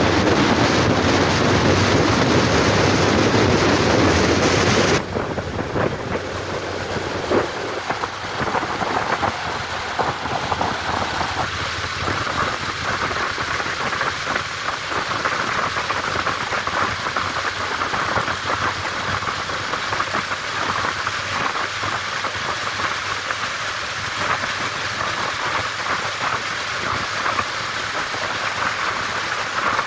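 Wind and road noise rushing over a camera mounted low on a moving Honda motorcycle, a steady hiss with no clear engine note. About five seconds in, the heavy low buffeting drops away abruptly, leaving a thinner, higher hiss.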